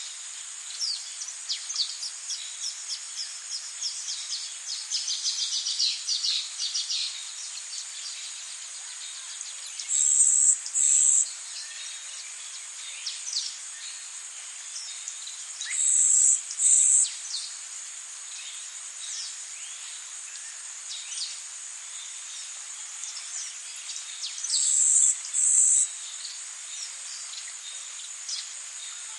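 Forest ambience: a steady high-pitched insect drone, with birds chirping in quick falling notes that run into a rapid trill in the first several seconds. Three times, roughly every seven to nine seconds, a louder pair of short, high, buzzy notes sounds.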